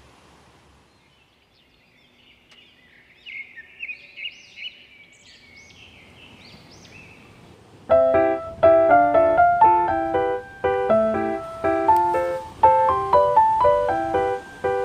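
A bird singing a series of quick high chirps and warbled phrases over a quiet background. About halfway through, background piano music starts with a steady run of notes and covers everything else.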